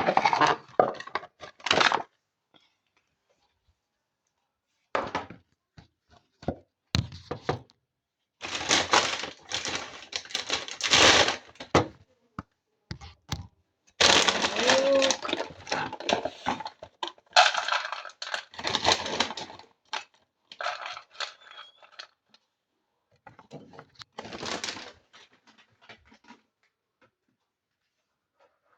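Pet food being handled: packaging rustling and dry food and bowls clattering. The sound comes in irregular bursts of crackling and clicks, with short pauses between them.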